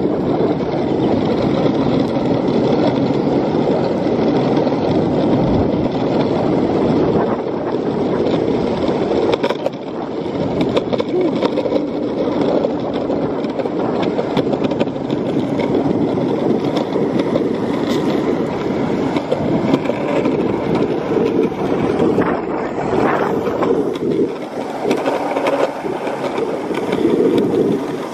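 Longboard wheels rolling fast over a concrete sidewalk: a loud, steady rolling noise with occasional short clicks as the wheels cross the sidewalk seams.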